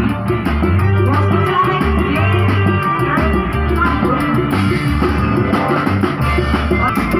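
Loud band music with a bass line, drums and guitar under a melody line.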